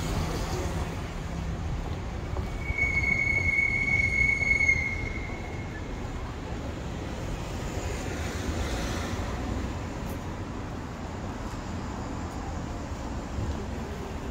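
Steady city street traffic noise. About three seconds in, a single high-pitched squeal holds one steady pitch for about two seconds, then stops.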